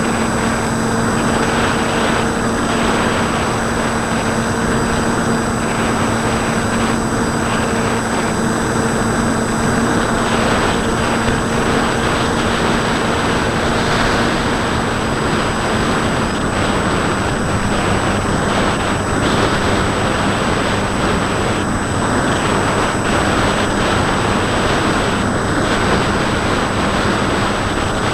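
Bixler 2 model plane's Turnigy D2826 1400kv brushless motor spinning an 8x5 propeller in steady flight, a constant hum over rushing wind on the onboard camera's microphone. The hum's pitch steps down slightly a little past halfway as the throttle eases.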